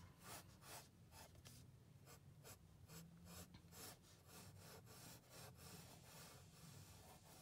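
A pencil sketching on sketchbook paper: faint, short scratching strokes in quick succession as the drawing is loosely refined.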